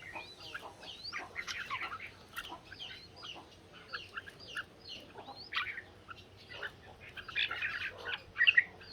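Red-whiskered bulbuls singing against each other in a song contest: a busy, overlapping run of short whistled phrases and chirps that sweep up and down in pitch.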